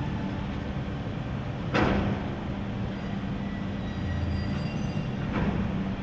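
Faint high-pitched metallic screeching and creaking over a steady low rumble, with a sharp clank about two seconds in and a softer knock near the end. The recorder takes it for nearby building work, but the source is unknown.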